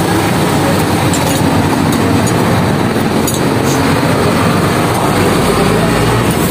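A loud, steady engine-like running noise, with a few light metal clinks from an adjustable wrench working on a motorcycle's rear axle nut.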